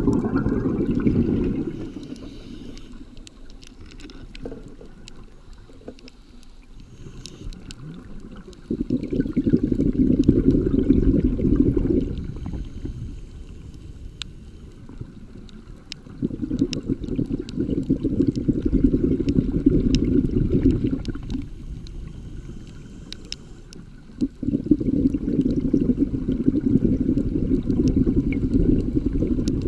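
Scuba regulator exhaust bubbles heard underwater: long bursts of exhaled bubbles, each lasting three to five seconds, come about every eight seconds. The tail of one burst is at the start and three more follow. In the quieter stretches between breaths there are scattered sharp clicks.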